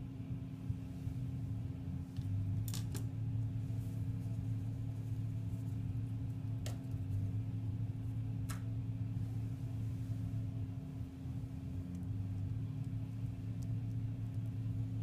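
A few light, sharp clicks of small metal parts and a screwdriver being handled and set down while a tattoo machine's stroke cap is taken out, over a steady low hum.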